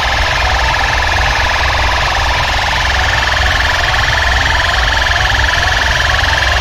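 Very loud, distorted electronic siren-like tones blasted through a large DJ sound system. A high tone is held steady, short rising sweeps repeat over it, and there is a fast throbbing bass underneath.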